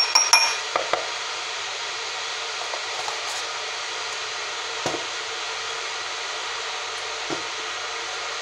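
Metal spoon clinking several times against a glass tumbler in the first second, each clink ringing briefly. Two single dull knocks follow, near five and seven seconds in, over a steady hiss.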